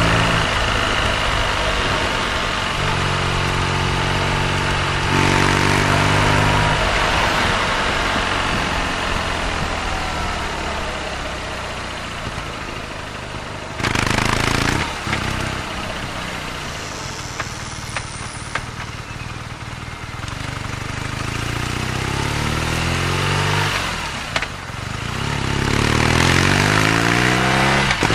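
BMW R nineT's boxer twin engine running while riding, with wind and road noise: it holds a steady pitch, eases off through the middle with a brief loud rush of noise, then accelerates with the engine pitch rising again and again as it pulls up through the gears near the end.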